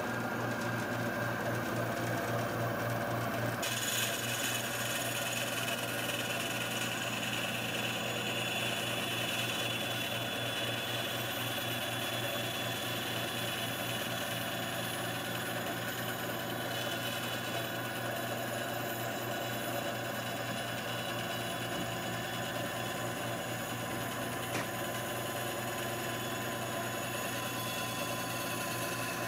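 Ryobi 9-inch benchtop band saw running, its blade cutting through plywood: a steady motor hum with a fast pulsing, and a brighter hiss that comes in about four seconds in.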